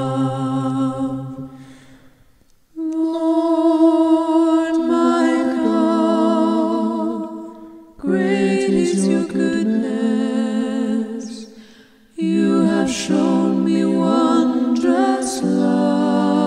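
Wordless a cappella vocal music: several voices humming held chords with vibrato. The phrases fade out and start again three times.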